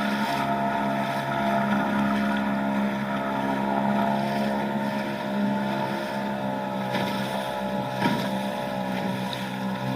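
Nissan (Tohatsu) 3.5 hp two-stroke outboard motor running steadily at a constant speed, with wind on the microphone.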